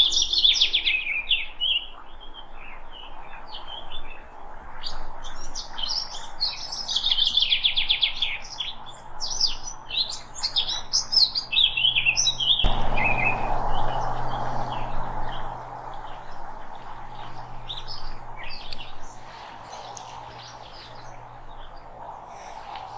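Many songbirds chirping and singing together in quick, overlapping calls. About halfway through, the sound cuts abruptly to sparser, quieter calls over a steady low background hum.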